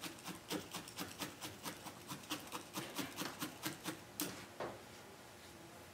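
Multi-needle felting tool stabbing wool on a burlap-covered felting pad, felting the oatmeal wrap where the leg joins the body: a quick, even run of pokes about five a second. It stops about four seconds in after two slightly stronger final stabs.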